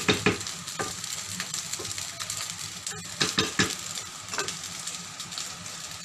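Fried rice sizzling in a hot pan while a utensil stirs it, with a few short scrapes against the pan, clustered at the start and again about three seconds in.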